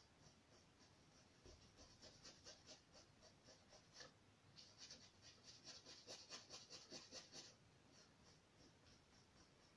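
Faint strokes of a small paintbrush on a canvas, a run of quick light dabs about three or four a second from about two seconds in until shortly before the end, with a brief pause in the middle.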